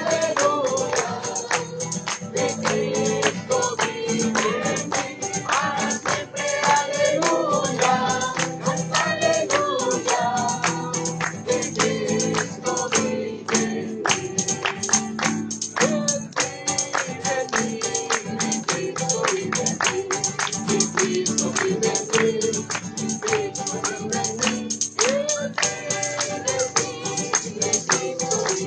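Voices singing a Christian praise song together, with a tambourine struck in a quick, steady rhythm throughout.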